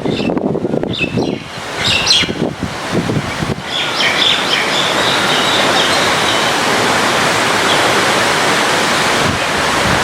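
Small birds chirping in short bursts over rain. About three and a half seconds in, the rain turns into a dense, even hiss, with a few more chirps just after.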